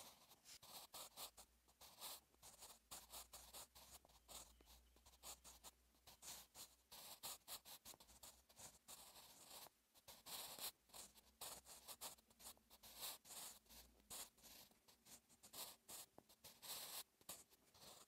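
Staedtler Mars Lumograph Jumbo 8B soft graphite pencil writing Korean cursive on notebook paper: faint scratching in quick, irregular strokes with brief pauses between letters.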